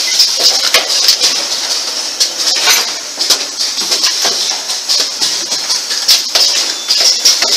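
Automatic MCB rivet insertion and testing machine running, clattering with rapid, irregular metallic clicks from its indexing table and pneumatic cylinders over a steady high hiss.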